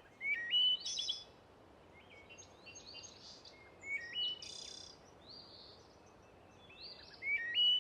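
A small bird chirping: short, high calls that step and glide in pitch, in three clusters, about a second in, through the middle, and near the end.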